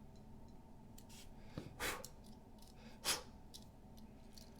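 Two brief scraping clicks about a second and a half apart, with faint small ticks between them: small-parts handling as the last button-head screw is driven into the diecast model's base.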